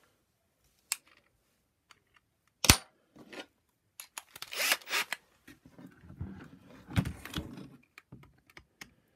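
Scattered clicks, knocks and rustles of plastic vacuum power-nozzle parts and a cordless drill being handled, with one sharp click about two and a half seconds in.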